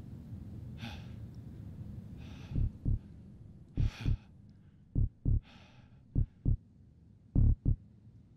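Heartbeat sound effect: a low double thump (lub-dub) about every 1.2 seconds, starting about two and a half seconds in. Heavy breaths come about every second and a half, and a low rumble fades away under them.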